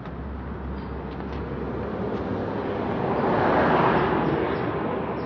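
A vehicle passing by: a broad rushing noise that swells to its loudest about three and a half seconds in and then fades.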